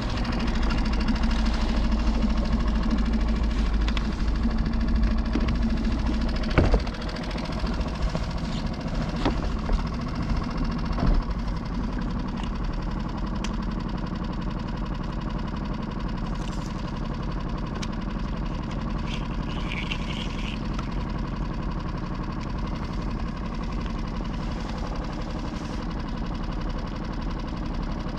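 Small outboard motor on a skiff running steadily under way, a little louder for the first several seconds, then settling to a lower, even drone. A few sharp knocks sound over it in the first half.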